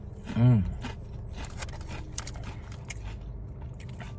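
Chewing and crunching of Ruffles ridged potato chips close to the microphone, in scattered crackly bites. About half a second in, a short voiced hum rising and falling in pitch is the loudest sound.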